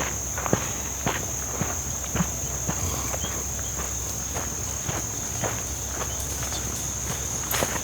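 A hiker's footsteps on the trail, about two steps a second, over a steady high-pitched chorus of insects.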